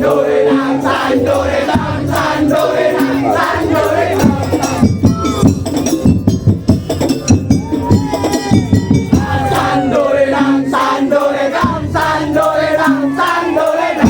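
Daul Madura ensemble playing: dense drum and percussion strokes under a held melody line, with crowd voices mixed in.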